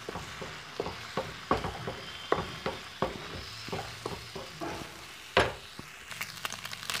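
Eggs sizzling in hot oil in a frying pan while a spatula stirs and scrapes them into scrambled egg, its strokes against the pan coming irregularly. One louder knock of the spatula on the pan comes a little over five seconds in.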